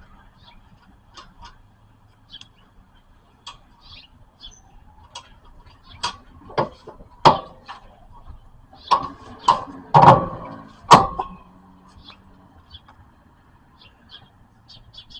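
A cluster of sharp metal knocks and clanks, about eight in five seconds, each with a short ring, among light clicking: tools and metal parts striking as the new front strut is fitted into place.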